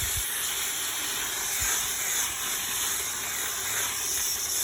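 Aerosol can of soybean oil cooking spray hissing in one long, steady spray into an air fryer.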